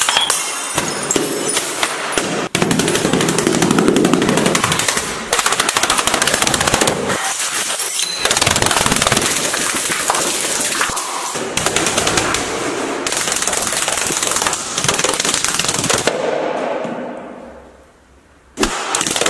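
A rapid, unbroken string of sharp bangs like automatic gunfire, loud and cut into several sections that change abruptly. It fades away about three-quarters of the way through, then starts again suddenly just before the end.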